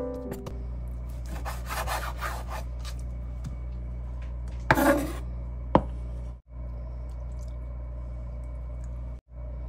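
Raw chicken pieces being rubbed and scraped across a wooden cutting board and gathered into a stainless steel bowl, with one short, louder burst about five seconds in and a sharp click just after. The second half holds only a steady low hum that drops out briefly twice.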